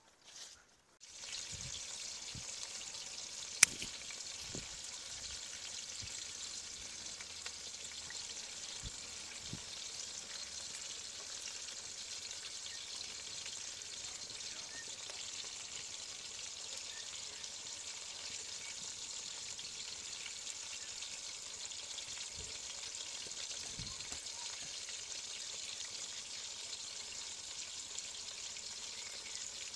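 Chicken pakoras deep-frying in hot oil in an aluminium karahi, a steady sizzle that starts about a second in. A single sharp click about three and a half seconds in is the loudest sound.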